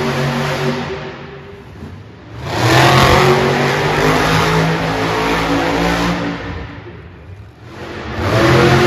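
Monster truck engines running and revving. The engine note surges to full throttle about two and a half seconds in, falls away around seven seconds, and surges again near the end.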